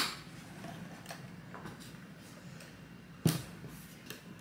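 Objects being handled and set down on a hard surface: a sharp knock right at the start and another about three seconds in, with a few faint taps between.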